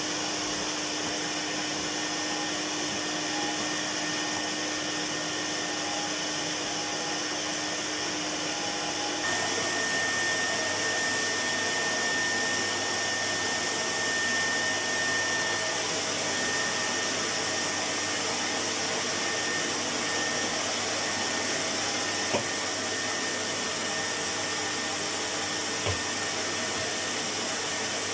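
Goblin 702 cylinder vacuum cleaner with its bypass motor running steadily. About nine seconds in, its note changes: a high whistle comes in and it gets slightly louder.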